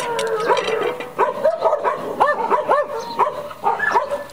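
Dogs whining and yipping: a rapid run of short, high-pitched yelps that rise and fall, several a second.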